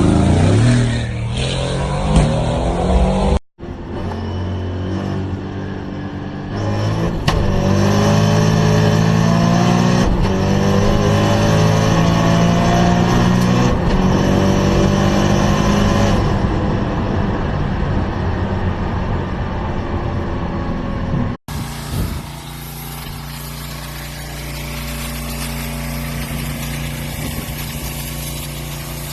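Mustang car engine sounds across three clips. First the engine revs up and down, then it runs hard with its pitch slowly climbing, and after a cut about three-quarters of the way in a steadier, lower engine drone.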